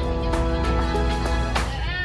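Music with held notes and a wavering sung voice, over a steady low rumble from the moving bus.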